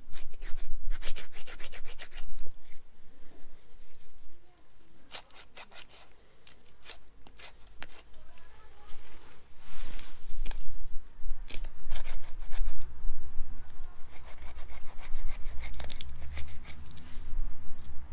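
A large fixed-blade knife shaving thin curls off a dry wooden stick, carving kindling: groups of short, quick scraping strokes with pauses between them.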